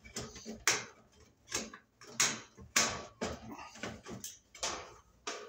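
Screwdriver-handled socket driver turning a screw into the sheet-metal back panel of an electric range: a string of sharp metallic clicks, roughly one or two a second and unevenly spaced, with faint scraping between them.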